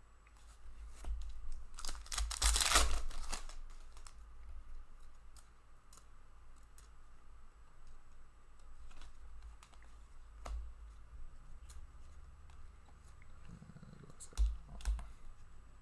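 Hockey trading cards being handled and flipped through by hand: light clicks and slides of card stock against card, with a louder rustling scrape about two to three seconds in.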